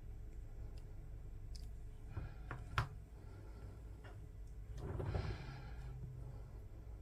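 Hands working fine fishing line and a small hook: faint clicks and rustles, with one sharp click a little under three seconds in and a brief soft rustle about five seconds in, over a low steady hum.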